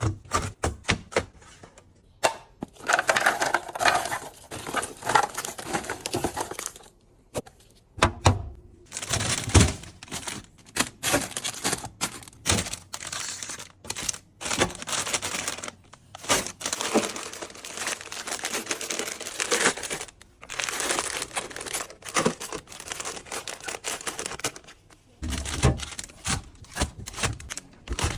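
Plastic food packaging crinkling, rustling and tearing as it is opened and handled, with many quick clicks and knocks of items being set down.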